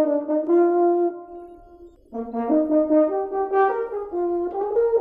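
French horn playing a melody of held notes; the phrase fades about a second in and a new phrase starts about two seconds in.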